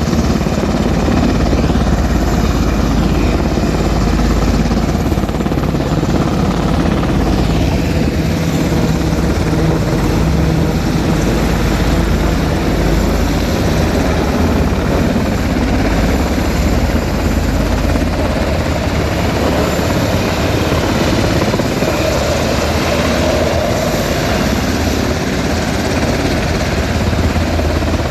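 Rescue helicopter's rotor and engine running, loud and steady throughout.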